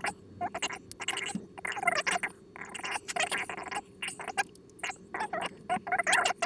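Sharpie marker squeaking and scratching against paper in a quick series of short, squeaky strokes as lines are drawn.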